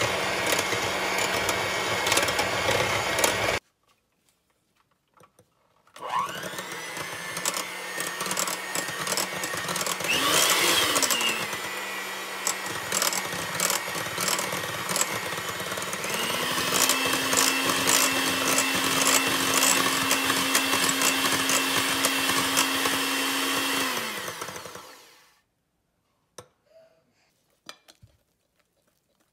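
Electric hand mixer whipping egg whites into meringue in a glass bowl, its motor running with a whirring rattle of the beaters. It cuts out for a couple of seconds, spins up again, and about 16 seconds in steps up to a higher speed. It runs on until it winds down near the end.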